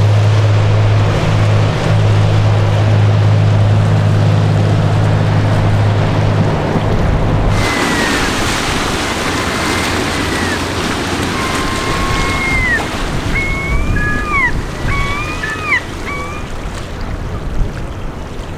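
A ship's horn sounding one long, deep, steady blast that stops abruptly about eight seconds in. Then wind and water noise, with gulls calling several times.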